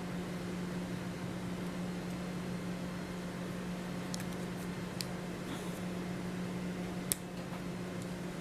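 Steady low hum throughout, with a few small sharp clicks from a cable cutter working the outer jacket of a Cat 6 UTP cable; the loudest click comes about seven seconds in.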